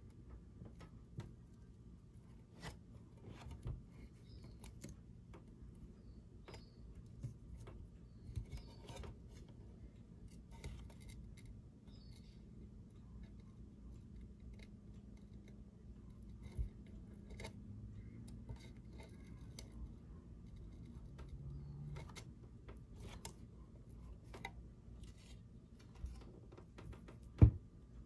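Light handling clicks and small snaps as die-cut pieces are pushed out of a thin chassis-protector sheet by hand, scattered and irregular, with one sharper knock near the end.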